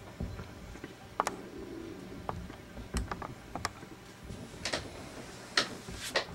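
Scattered light clicks and taps, about a dozen at irregular spacing, several bunched together around the middle.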